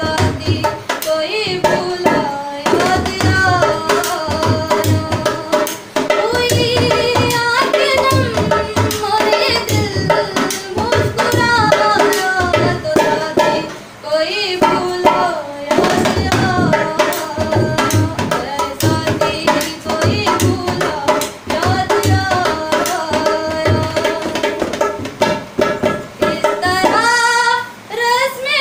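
Woman singing a Hindi folk song to a dholak drum beating a steady rhythm.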